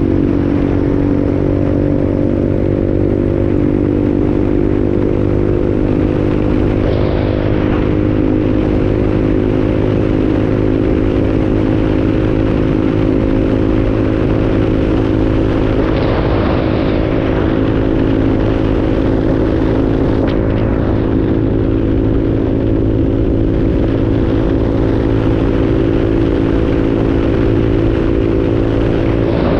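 Motorcycle engine running at a steady pitch at cruising speed, heard from the rider's seat, with road and wind noise. An oncoming vehicle passes about halfway through.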